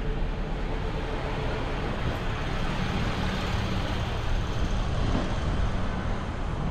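City street traffic noise: a steady din of idling and slow-moving cars and trucks, with a low engine hum underneath.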